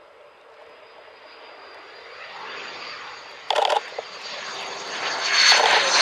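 Hawker Hunter jet on landing approach, its engine noise and high steady whistle growing louder as it nears. A short loud burst of noise comes about three and a half seconds in.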